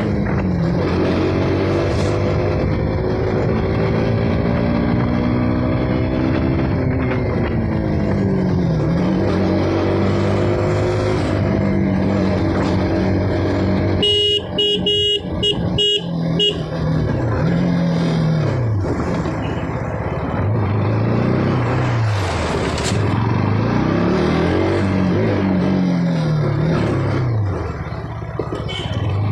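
KTM RC 200's single-cylinder engine through its stock exhaust while riding, its pitch climbing as it revs up through the gears and dropping when the throttle closes, several times over. A horn sounds briefly about halfway through.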